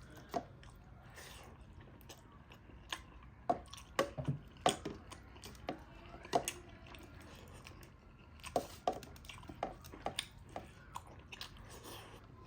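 Close-up sounds of a person chewing and eating a meal: irregular short smacking clicks of the mouth and food, in clusters with quieter gaps between.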